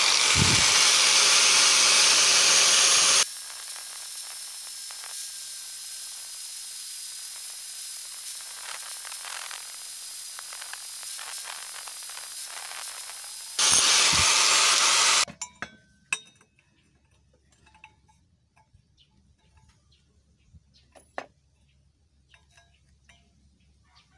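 Angle grinder with an abrasive disc grinding a threaded steel pipe fitting: loud grinding at first, a quieter steady run with a faint high whine, then loud grinding again until the grinder cuts off about fifteen seconds in. Faint clicks of the metal part being handled follow.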